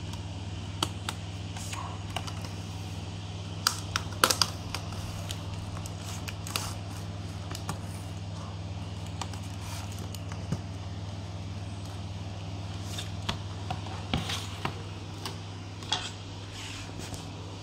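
Scattered light plastic clicks and taps from a laptop keyboard being handled and pressed into place in its chassis, bunched about four seconds in and again near the end, over a steady low hum.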